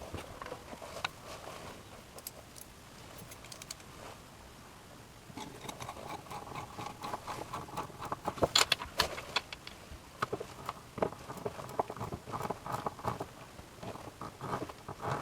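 Small stainless steel L brackets and screws being handled and fastened to a wooden post: scattered light metallic clicks and rattles, getting busier about five seconds in.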